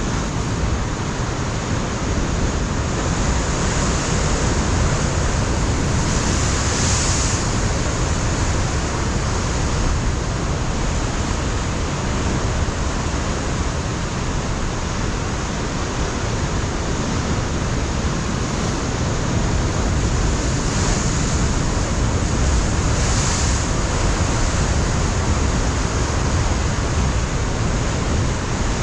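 Pacific surf breaking and washing over a rocky shore, a steady loud roar of water with wind over the microphone; the hiss of the surf brightens briefly about seven seconds in and again about twenty-three seconds in.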